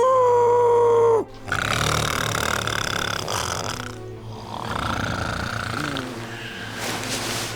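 Exaggerated, comedic snoring, likened to a tank or exploding shells. A loud held whistling tone rises in at the start and lasts about a second, then two long rasping snore breaths follow.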